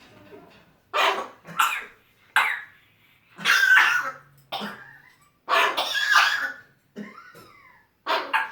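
African grey parrot coughing again and again in short, harsh bursts with brief silences between, some with a squeaky whistle-like tone and a falling whistle near the end. The owner takes the coughing for a severe case of pneumonia.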